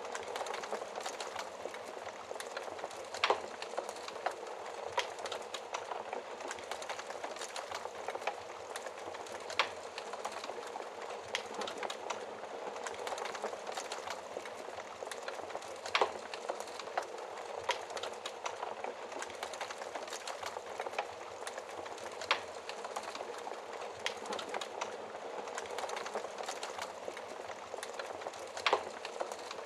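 Campfire burning with a steady hiss and irregular crackles and pops of wood, a few of them sharper and louder.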